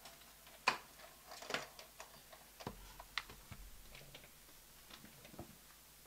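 Irregular clicks and light taps of clear plastic die-cutting plates and dies being handled and set down on a table, the loudest click about two thirds of a second in.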